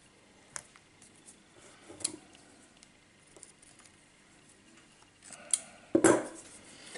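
Small metal clicks and a tool snip, with wire being handled and threaded while a bonsai is anchored in its pot: a few sharp clicks spread out, and a louder rustle near the end.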